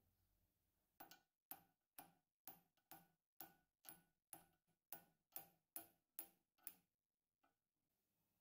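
A steady run of about a dozen sharp clicks, a little over two a second, each ringing briefly, starting about a second in and stopping about a second and a half before the end.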